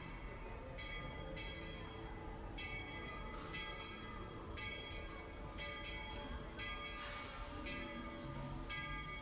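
Steam locomotive's bell ringing about once a second as the train approaches the station, over a low steady rumble, with a short hiss about seven seconds in.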